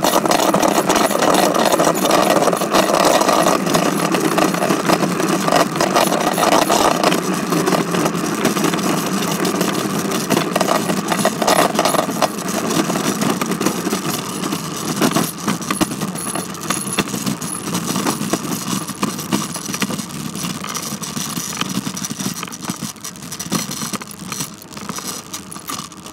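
Continuous rattling and rumbling of a bicycle being ridden, with dense irregular clatter; it gets quieter over the last few seconds.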